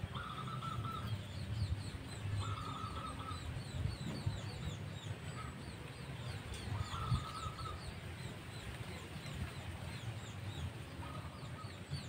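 Zebra doves (perkutut) cooing: four short calls, each a quick run of notes lasting about a second, spaced a few seconds apart. Faint thin, high chirps from small birds run underneath.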